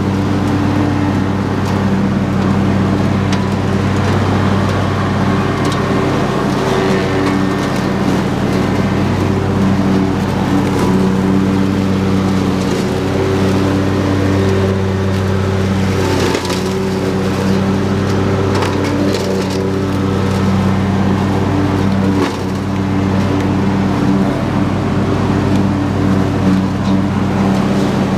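Husqvarna YTH22V46 lawn tractor's V-twin engine running steadily under load while the mower deck blades cut through tall grass, ferns and brush, with scattered cracks and snaps as stems and sticks are chopped.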